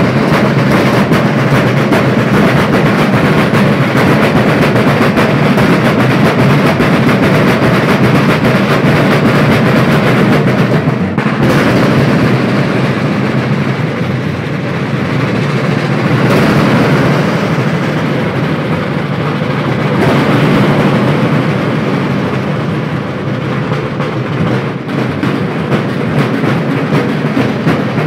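Many Sicilian tamburi, large rope-tensioned street drums, beaten together with wooden sticks: loud, dense, continuous ensemble drumming.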